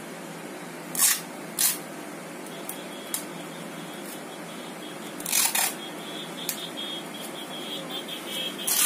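Black electrical tape pulled off its roll in short rips: two quick ones about a second apart, a longer one about halfway, and another near the end. A steady low room hum lies under it.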